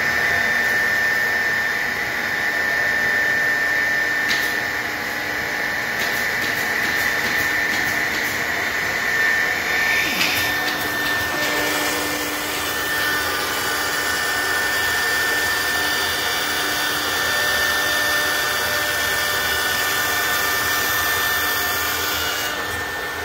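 ShopSabre 4896 CNC router's spindle cutting a white plastic sheet: a steady whine over the rush of the vacuum and dust extraction, its pitch shifting a little about halfway through.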